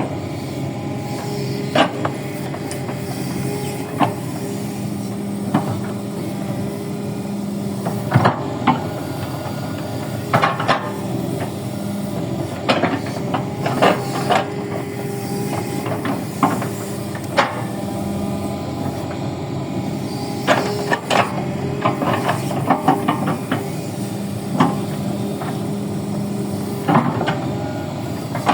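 Kobelco excavator's motor running steadily while it digs soil, with irregular clicks and clattering knocks throughout.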